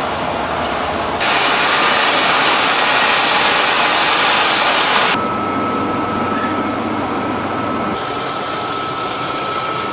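Peanut-processing machinery running, heard in several short cuts. A loud, even rushing noise as peanuts pour onto a sorting conveyor is followed by steadier machine noise with a thin, steady high whine.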